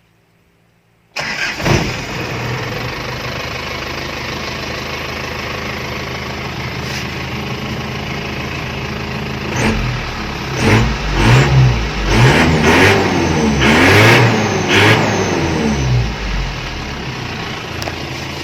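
Isuzu TFR pickup engine starting about a second in, then idling through its aftermarket split Mitsu-type exhaust muffler. From about ten seconds in it is revved several times, the pitch rising and falling, before settling back to idle.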